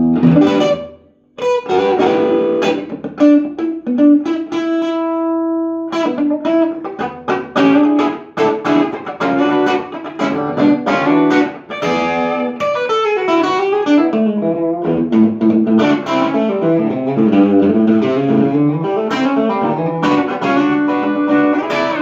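Telecaster-style electric guitar played through a Bell and Howell AQ2 converted Filmosound-style amplifier: busy picked single notes and chords, with a short pause about a second in and one note held and left to ring about five seconds in.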